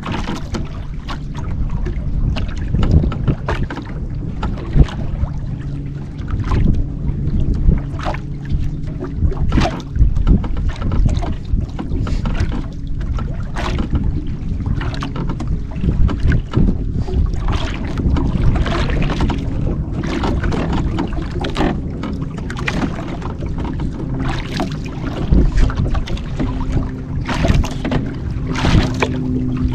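Waves lapping and slapping against the hull of a small wooden outrigger boat, with wind gusting on the microphone. Short irregular splashes come throughout, and a low steady hum comes and goes underneath.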